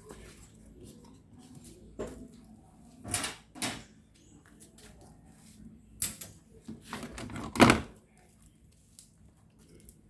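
Handling noises on a repair bench: a few short scrapes and knocks, then a longer rattle ending in one loud knock near the end.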